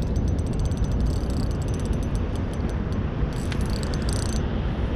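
Rapid fine clicking of a fishing reel as a hooked fish is played, in two spells, over a steady low rumble of wind and water.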